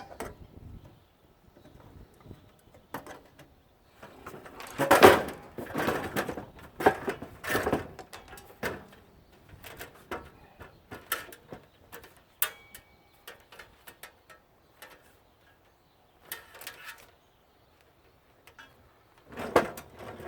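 Irregular knocks, clanks and scraping of sheet-metal and parts being handled while a central air conditioning unit is dismantled, loudest in a cluster of strikes a few seconds in and again near the end.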